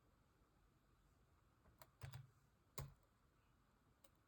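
A handful of scattered keystrokes on a computer keyboard, starting about two seconds in. Near silence otherwise.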